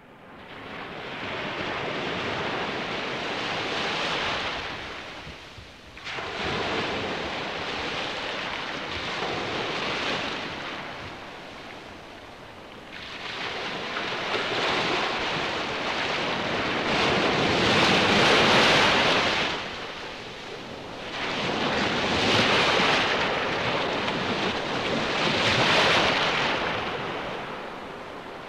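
Rough-sea surf breaking against concrete breakwater blocks in strong wind. The rushing noise swells and eases every few seconds, with the loudest surges near the middle and toward the end.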